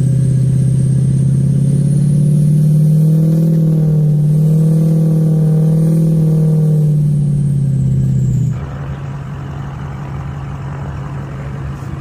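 Diesel pickup engine held at steady high revs under load, with a faint high whine above it. It drops off suddenly about eight and a half seconds in to a lower, quieter running sound.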